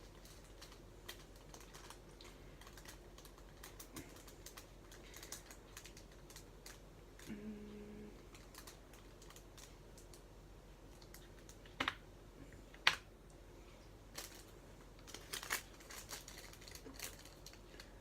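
Scattered light clicks and taps of small plastic diamond painting drills and their storage containers being handled, with two sharper clicks about two-thirds of the way through and a short low hum about halfway.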